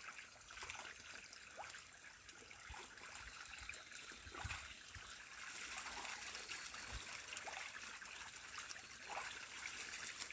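Faint water splashing and trickling as Muscovy ducks bathe and paddle in a shallow muddy pond, with irregular small splashes throughout.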